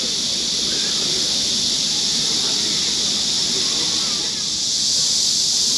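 Chorus of cicadas buzzing in a steady, loud, high-pitched drone that swells a little near the end.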